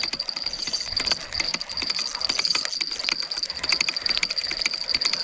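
Spinning reel being cranked against a hooked fish, giving a fast run of small clicks from the reel. A steady high insect drone goes on underneath.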